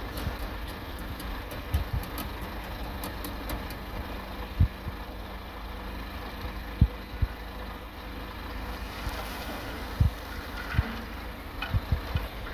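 Heavy earthmoving machinery's diesel engine running steadily at a low rumble, with a few short low thumps scattered through.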